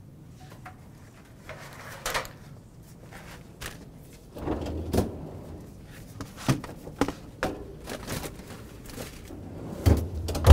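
A refrigerator's bottom freezer drawer slides open with a low rumble and a knock about four and a half seconds in. A few knocks and clicks follow as foil-wrapped packets are set inside, then the drawer slides shut with a heavy thud near the end, the loudest sound here.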